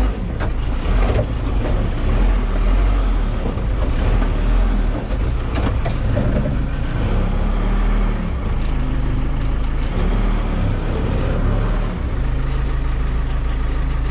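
Diesel backhoe engine running steadily under load, with a few sharp metal knocks, some near the start and a pair about six seconds in.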